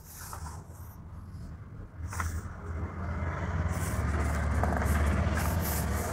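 Paper pages of a stapled booklet rustling and flapping as they are turned by hand, over a low rumble that grows louder after about two seconds.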